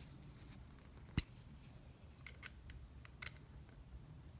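Small handling clicks of a T30 Torx bit being pulled from a plastic bit holder and fitted into a screwdriver: one sharp click about a second in, then a few fainter ones.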